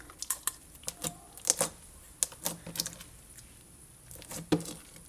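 Foam-bead slime being squeezed and stretched by hand, giving irregular sharp crackles and pops.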